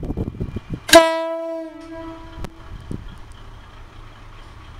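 Horn of a KiHa52 diesel railcar sounding one short blast about a second in, with a clear pitch that dies away over about a second and a half.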